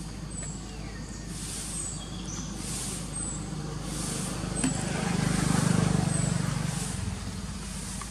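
A motor vehicle passing: a low engine rumble swells and fades between about five and seven seconds in, over a steady low hum. Short high chirps repeat about once a second throughout.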